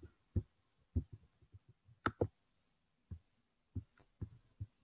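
A dozen or so soft, irregular clicks and taps from someone handling the computer, likely mouse or touchpad clicks. The sharpest come about two seconds in and right at the end.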